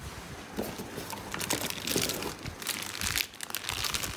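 Plastic shopping bags and plastic-wrapped groceries rustling and crinkling as they are handled, an irregular run of crackles.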